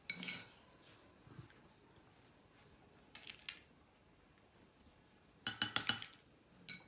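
Metal spoon clicking and tapping against a bottle as spoonfuls of seeds are added to warm water: a few quick clicks at the start, another short group about three seconds in, and a louder run of clinks around five and a half to six seconds.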